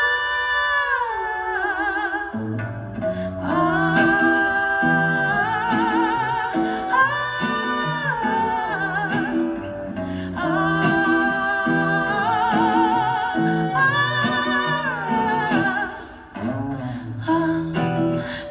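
Live band playing an instrumental passage of a song: a held, wavering melody line over a bass line that comes in about two seconds in, with a brief drop in loudness near the end.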